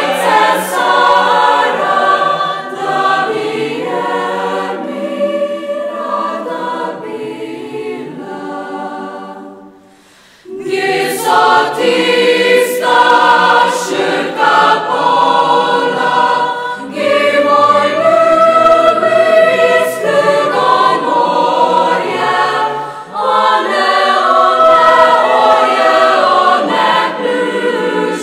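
Mixed youth choir singing. The singing dies away to a brief pause about ten seconds in, then comes back in at full strength.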